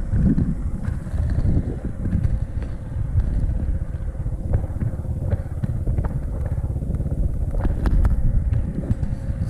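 Motorcycle running while being ridden, a dense low rumble with a few sharp knocks and rattles along the way.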